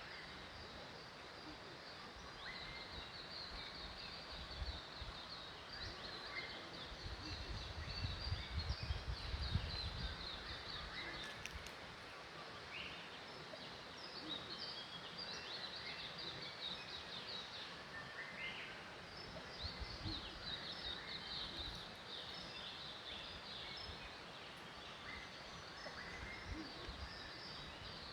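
Many small birds chirping at once, a dense, continuous chatter of short high calls. A low rumble swells and fades about eight to ten seconds in.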